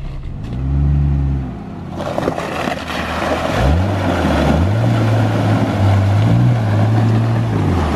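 Jeep Wrangler engine pulling through a muddy water puddle, with water and mud splashing steadily around the tyres. The engine note rises about three and a half seconds in, then holds steady.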